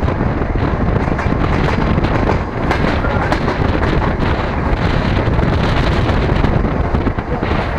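DR1A diesel multiple unit running at speed, heard from an open window: steady rumble and rattle of the train with wind buffeting the microphone.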